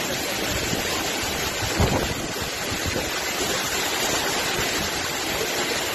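Tropical cyclone wind and heavy rain: a steady rushing noise, with a gust buffeting the microphone about two seconds in.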